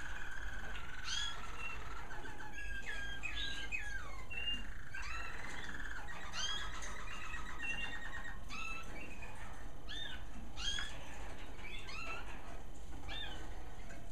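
American Singer canaries singing, more than one bird: rapid rolling trills mixed with short rising and falling whistled notes. A steady low hum runs underneath.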